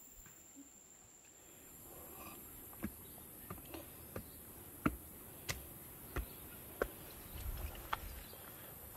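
Insects buzzing in a steady high-pitched drone, joined by footsteps at about one and a half steps a second from about three seconds in to near the end.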